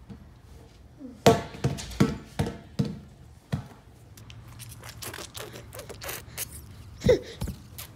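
A toddler's hands slapping and bouncing a large inflatable exercise ball: a quick run of about six thumps, then a few light taps and clicks, and one more loud thump near the end.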